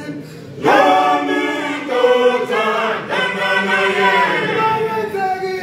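Male choir singing in close harmony, unaccompanied, coming in full and loud after a soft opening half-second.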